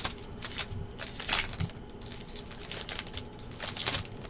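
Foil and plastic wrapping of trading card packs and boxes crinkling and rustling as they are handled, in several short bursts.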